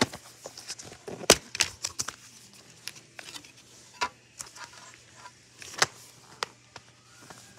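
Plastic DVD case being handled and opened and the disc taken out: a string of sharp clicks and snaps, the loudest about a second in.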